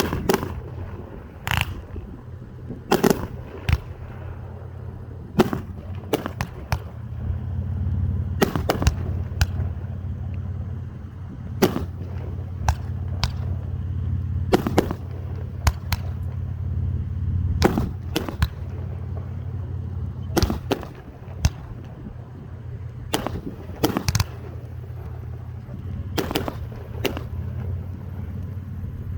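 Fireworks going off: sharp bangs and cracks at irregular intervals, roughly one a second, over a steady low rumble.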